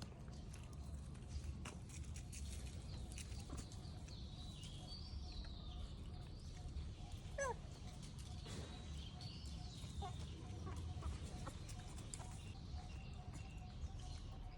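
Faint animal calls, a few short high chirps and one rising call about midway, over a low steady rumble with scattered clicks.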